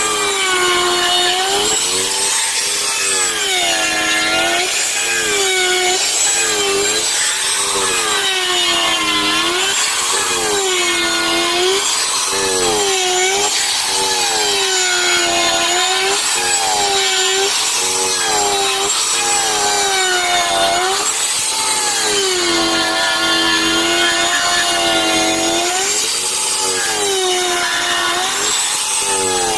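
Wood router running and carving into wood, with a high motor whine and the rasp of the cutting bit. The whine dips in pitch and recovers about every two seconds as the bit bites into the wood under load and is eased off.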